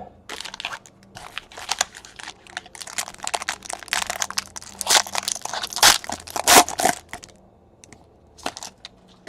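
Plastic wrapping crinkling and tearing in quick irregular bursts as a pack of trading cards is opened, dying down to a few light clicks about seven seconds in.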